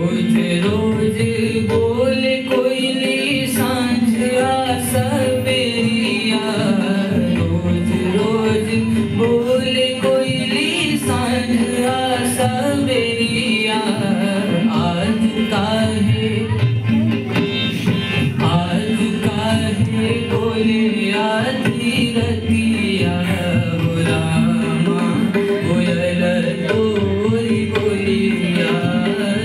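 Male voice singing a north Indian folk song to harmonium accompaniment, the harmonium's held reed notes under the bending vocal line, with hand-drum strokes throughout.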